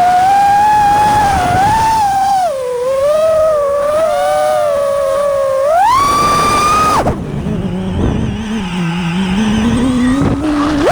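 FPV quadcopter's T-Hobby 2208 1750kv brushless motors and propellers whining, the pitch rising and falling with the throttle. It climbs sharply about six seconds in, then drops suddenly a second later to a low tone as the throttle is cut.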